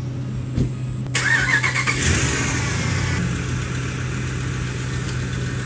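Ram pickup truck engine starting: it cranks about a second in, catches at about two seconds, then settles into a steady idle.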